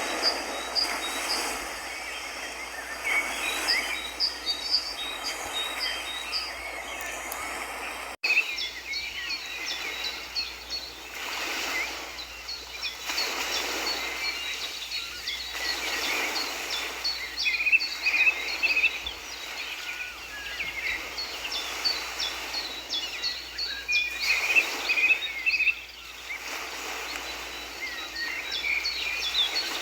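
Small birds chirping and twittering over a steady rushing outdoor noise that swells and fades every few seconds. There is an abrupt cut about eight seconds in, after which the birdsong continues.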